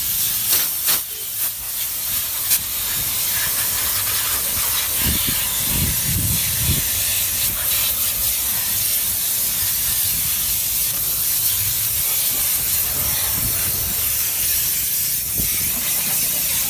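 Steam jetting from a car-wash steam cleaner's hand gun, hissing steadily as it is blasted at a car's wheel and tyre. A few clicks come in the first couple of seconds.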